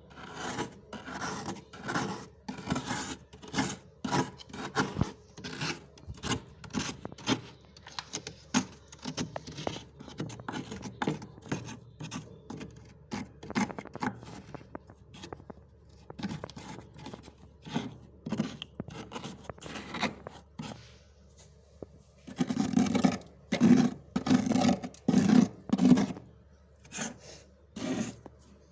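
Freezer frost being scraped in a series of crunchy, rasping strokes, roughly one or two a second, with a run of louder, heavier strokes near the end.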